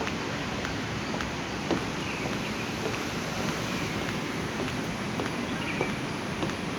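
Steady hum of road traffic, with footsteps at a walking pace and a few faint high chirps.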